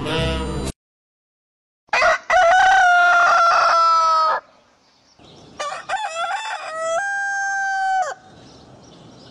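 A rooster crowing twice, each crow long and loud. The second crow climbs in steps to a held note.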